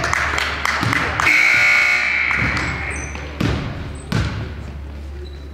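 Gym scoreboard buzzer sounds one steady note for about a second. A basketball then bounces on the hardwood floor about three times.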